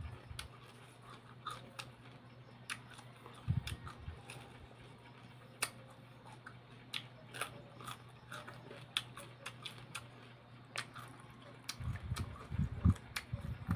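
Close-up chewing of raw cucumber: scattered short crunchy clicks and wet mouth sounds, with heavier chewing about three and a half seconds in and again near the end. A low steady hum runs underneath.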